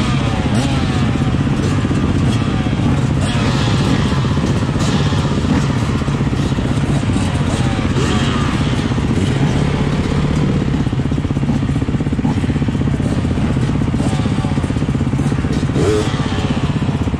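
Beta 390 RR-S's single-cylinder four-stroke engine idling steadily, with other dirt bikes running nearby and short rises and falls in engine pitch.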